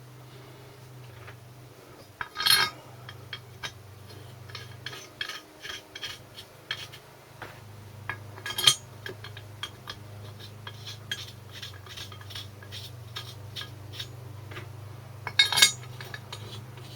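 Metal parts clinking and knocking as a cylinder head is fitted onto a Briggs & Stratton small engine block and its head bolts are handled: many light clicks with three louder clanks, about 2.5, 8.5 and 15.5 seconds in.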